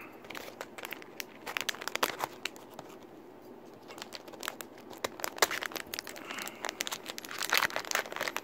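Plastic blind-bag packaging crinkling and crackling as it is torn open and its contents pulled out, including a clear plastic parts bag. Two spells of sharp crackles with a brief lull about halfway, busiest near the end.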